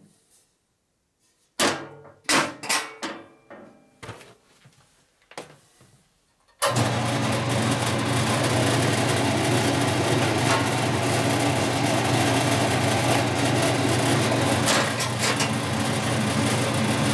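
A handful of metal knocks and clanks as the upper wheel cover of a 1960s Boice Crane 14-inch bandsaw is shut. About six and a half seconds in, the saw switches on abruptly and runs steadily with a motor hum and the noise of its newly fitted blade.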